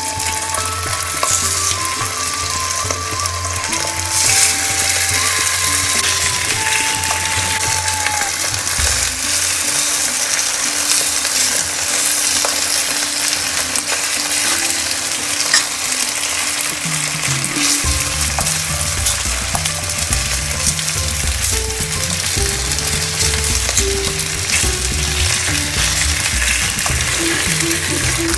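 Turkey slices searing in hot lard in a frying pan: a steady sizzling hiss of frying fat.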